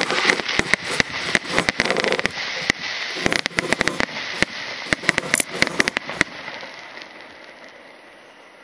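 Aerial fireworks crackling and banging in rapid, irregular volleys. The bangs stop about six seconds in and the sound dies away gradually.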